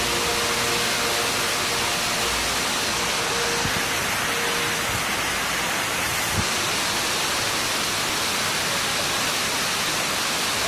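River rapids: a steady rush of white water pouring over and between boulders.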